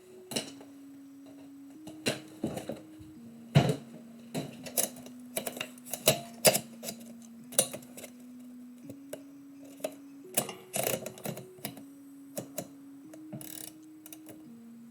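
Typewriter keys striking in irregular runs, a few sharp clacks at a time with short pauses between. Underneath are quieter held low notes of background music that change pitch every second or so.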